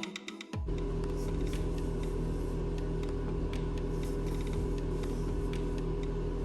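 A small electric motor starts abruptly about half a second in and runs with a steady, even hum.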